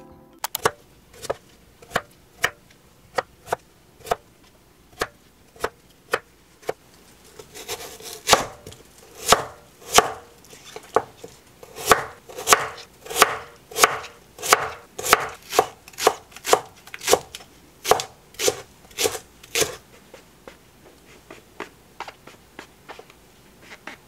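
Kitchen knife cutting white radish on a wooden cutting board. Separate cuts about two a second at first, then a louder, steadier run of chops from about eight seconds in until about twenty seconds, then only faint taps near the end.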